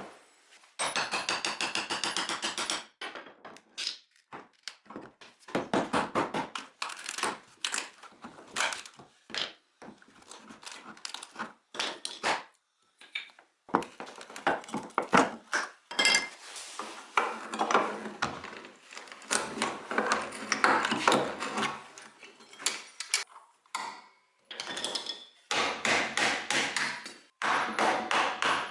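Hand tools at work on wooden furniture: a string of knocks and taps, broken by several longer stretches of dense, rapid working noise, with brief pauses between.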